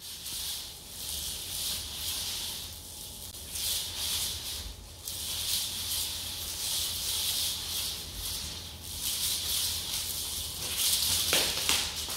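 Beads inside a plastic hula hoop rattling like a shaker as the hoop is swung and spun around the waist, in repeated swells with each turn. Near the end a louder rattle and clatter as the hoop drops onto the tiled floor.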